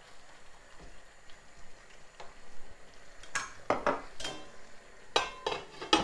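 A plastic spatula scraping and stirring through a pan of stewing fish and vegetables, several strokes in the second half over a faint sizzle from the sauce. Near the end a clink as a glass lid goes onto the pan to steam the fish.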